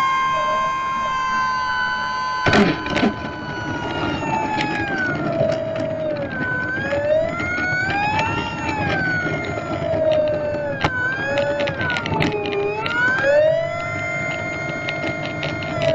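Electric motor and propeller of an FMS Cessna 182 RC model plane whining in flight, heard from the onboard camera, its pitch rising and falling several times with the throttle over a rush of air noise. A few sharp clicks cut through, the loudest about two and a half seconds in.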